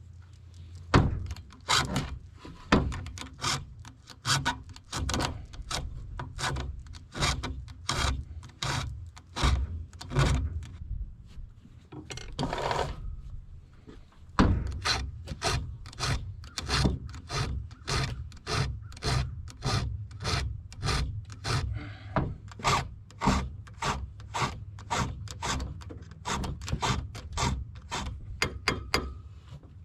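Repeated scraping strokes, about two a second, like a hand tool rasping back and forth. There is one longer stroke and a short pause about twelve seconds in, then the strokes resume.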